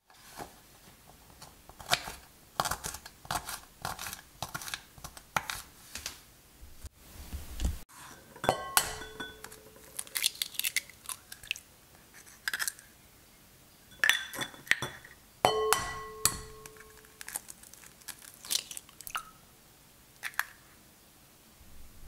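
Kitchen knife tapping and cutting on a wooden cutting board, a run of sharp taps. Then two eggs cracked on the rim of a glass bowl, each knock leaving a short ring of the glass, with the crackle of the shell breaking.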